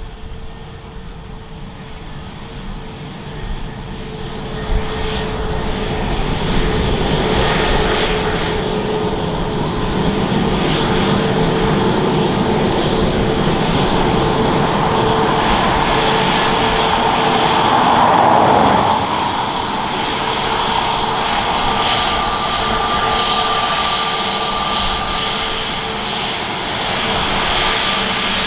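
Airbus A321neo's twin jet engines at taxi power as the airliner rolls past: a steady whine over a rumble. It grows louder over the first several seconds and is loudest about two-thirds of the way through.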